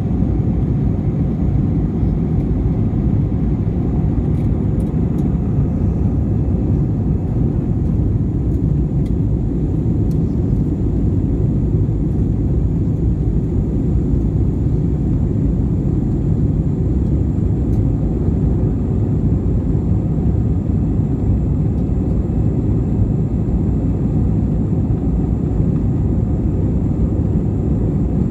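Airbus A321-200 cabin noise while climbing out after takeoff: a steady, deep roar of the jet engines and rushing air, with a faint high-pitched tone held above it.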